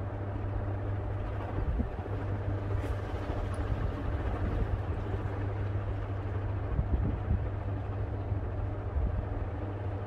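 Vintage Mistral 48-inch three-blade ceiling fan running at speed: a steady low motor hum under an even rushing of air from the blades.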